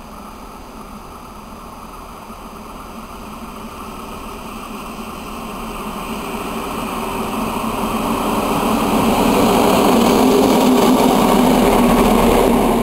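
Red DB class V100 diesel-hydraulic locomotive running light, its diesel engine growing steadily louder as it approaches and loudest as it passes close by near the end.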